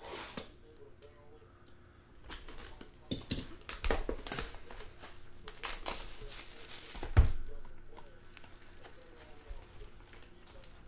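Plastic wrapping and foil card packs crinkling and tearing as a box of Topps Gypsy Queen baseball cards is opened, in quick irregular crackles, with one loud thump about seven seconds in.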